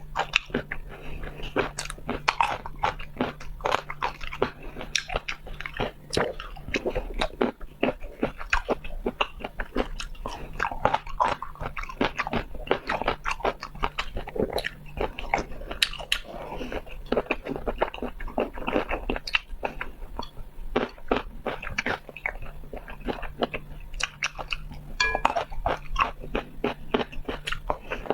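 Close-miked mouth sounds of a person biting and chewing food, with dense, irregular wet clicks and smacks.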